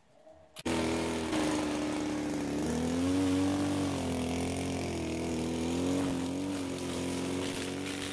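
Small petrol string trimmer engine running steadily at speed, its pitch wavering slightly; it comes in abruptly about half a second in.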